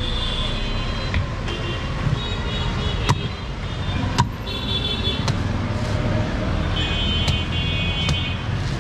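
Sharp chops of a large curved knife cutting into palmyra palm fruits on a wooden block, about one a second, over steady street traffic with repeated short, high-pitched horn toots.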